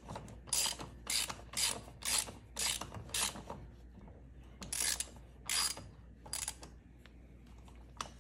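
Hand ratchet, a Kobalt, spinning a loosened lug nut off with quick back-and-forth strokes: a short burst of pawl clicking on each return stroke, about two a second. The strokes stop for about a second and a half in the middle, then three more follow.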